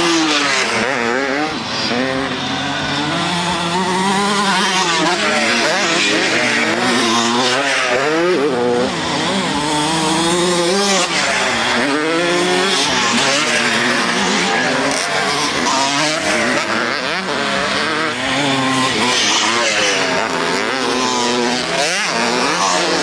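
Several motocross bikes racing past one after another, their engines revving up and down again and again as they take the track's turns and jumps.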